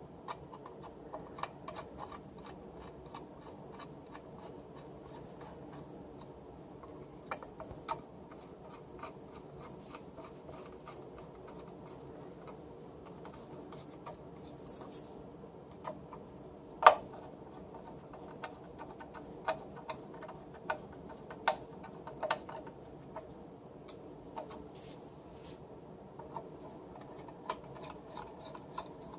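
Irregular small clicks, taps and light scraping of a keyboard and its aluminium housing being handled during assembly, with one sharper knock about 17 seconds in.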